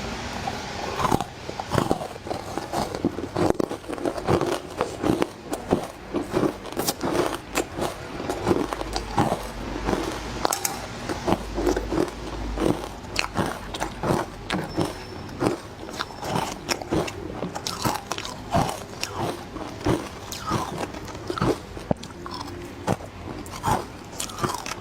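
Close-up biting and chewing of crushed matcha-flavoured ice: repeated crisp crunches, several a second.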